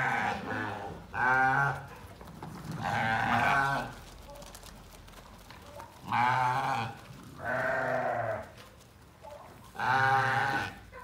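Goats and sheep bleating: about six quavering bleats, each under a second long, with a lull from about four to six seconds in.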